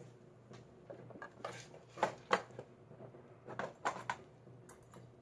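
Small metal lock parts and tools clinking and clicking as they are handled and set down on a pinning tray: a dozen or so separate light clinks, the loudest about two seconds in.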